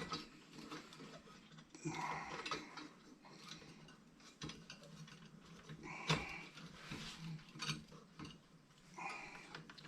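Faint clicks, scrapes and brief squeaks of the metal parts of a Coleman 220F lantern being handled and unscrewed during disassembly.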